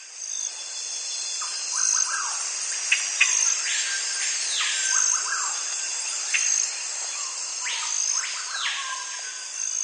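Nature ambience: a steady, dense chorus of crickets or other insects with birds chirping over it, including two longer rising-and-falling calls about four seconds apart.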